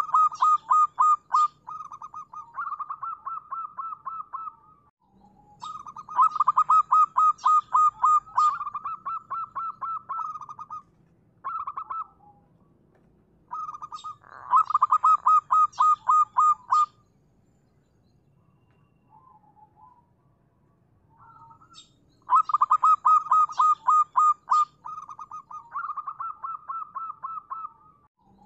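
Zebra dove (perkutut) cooing: long strings of rapid staccato coos, repeated in several bouts with short pauses. There is a quieter gap of about five seconds past the middle.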